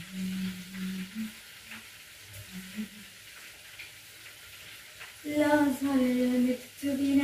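A woman humming a tune with no words, faint and low in the first second, then louder and wavering from about five seconds in. Under it runs a steady hiss of food sizzling as it fries.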